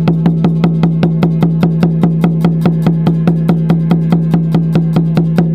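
Jagar ritual music with no singing: fast, even drum strokes, about seven a second, over one steady low drone note.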